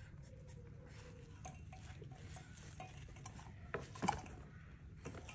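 Scattered light clicks and knocks on plastic, the loudest two close together about four seconds in. They come from a baby civet and a tortoise bumping against a plastic water dispenser and bowl.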